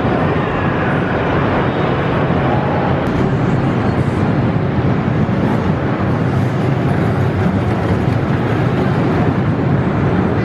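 Steel Chance roller coaster train rumbling along its track, blended into a steady din of indoor amusement-park noise.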